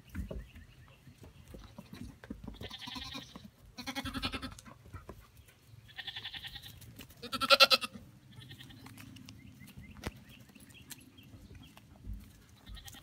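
Pygmy goat kids bleating: a string of short, high-pitched calls, the loudest about seven and a half seconds in.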